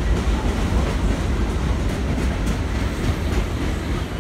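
R62A subway train running along an elevated station platform: a steady rumble of wheels on the rails, with a few clicks over rail joints.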